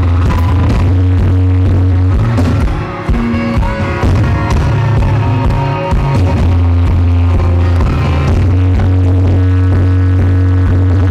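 Live rock band playing loud, with electric guitar and bass guitar driving the music and a brief drop in level about three seconds in. The audience recording is heavily distorted.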